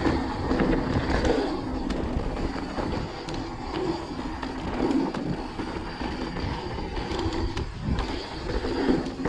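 Mountain bike descending a dirt trail: tyres rolling over packed dirt and loose stones with a continuous rumble, and frequent short clicks and rattles from the bike over the bumps.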